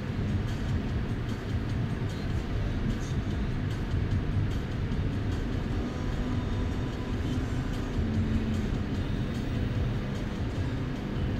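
Car driving along a narrow asphalt lane, heard from inside the cabin: a steady low rumble of engine and tyres.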